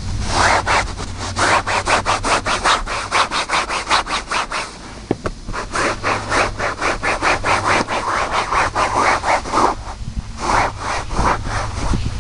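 Fast back-and-forth scrubbing of a towel over cloth seat upholstery, about five strokes a second, with short breaks about five and ten seconds in. The towel is rubbing off degreaser and the dirt it has lifted from the seat fabric.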